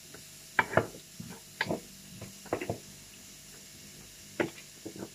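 Scattered clinks and knocks of utensils against dishes, about six sharp ones at uneven moments over a low steady background.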